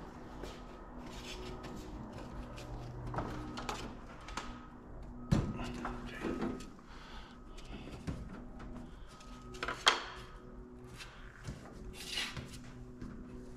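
Soft background music with held notes, over scattered knocks and clicks from hand work with tools and metal parts; the sharpest knocks come about five and a half seconds in and near ten seconds.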